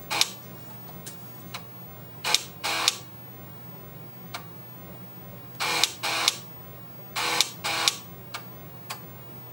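Floppy disk drive of an Intel iPDS-100 seeking in short bursts, mostly in pairs about half a second apart, with a few faint clicks between, as it reads the system from the boot floppy to copy onto the bubble memory. A steady low hum from the computer runs underneath.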